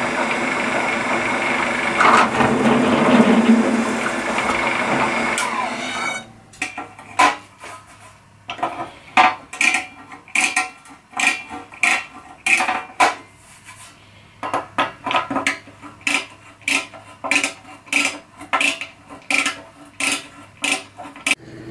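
A drill press cutting through a painted sheet-metal panel with a step drill bit. It runs steadily with a high whine for about six seconds, then stops. After that, a hand deburring tool is twisted in the drilled holes, giving short rasping scrapes a little more than once a second.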